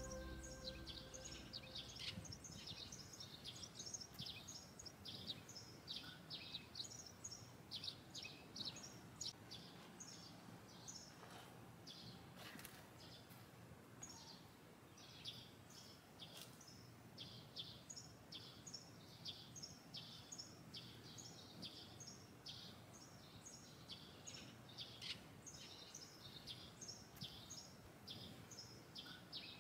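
Faint outdoor ambience with small birds chirping, short high calls repeated again and again.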